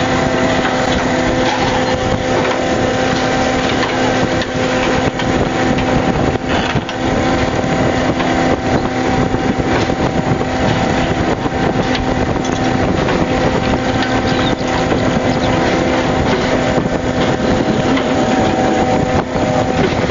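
Purse-seine fishing boat's engine and deck machinery running with a steady hum, under a continuous rush of wind and water.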